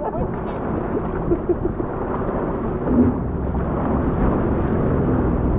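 Low, steady wind rumble buffeting the microphone out on open water, with faint voices a couple of times.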